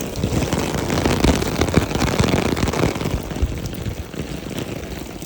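Thunder rumbling, swelling over the first couple of seconds and then slowly fading, over steady heavy rain.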